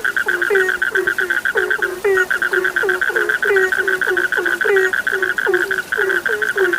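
Chorus of frogs calling: a fast, even trill that breaks off briefly about two seconds in, over a run of short low croaks, each dropping in pitch, about three or four a second.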